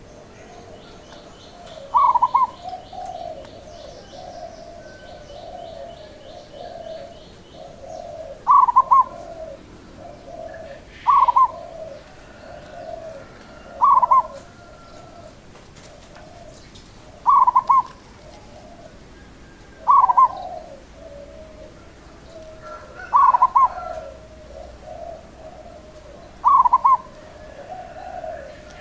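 Zebra dove (perkutut) cooing: a loud short phrase of a few quick notes repeated about every three seconds, with softer, lower cooing notes running between the phrases.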